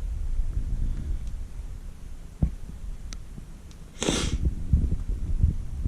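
Gears of a 1999 Nissan Maxima manual transmission turned by hand, giving a low, uneven rumble; one of the bearings makes the noise. There is a sharp click about two and a half seconds in and a short hiss about four seconds in.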